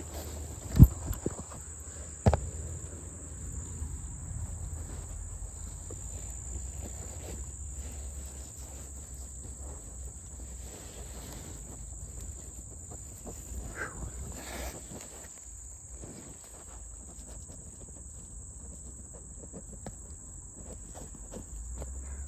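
Insects chirring in a steady high-pitched drone, with close handling rustles and two sharp knocks about one and two seconds in.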